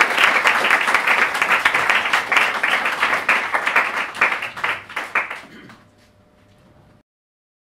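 Audience applauding, the clapping thinning out and dying away about six seconds in.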